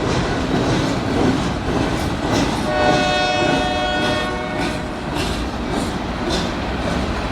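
Union Pacific local freight train rolling past with a steady rumble and repeated wheel clicks over rail joints. A single horn blast sounds for about two seconds near the middle.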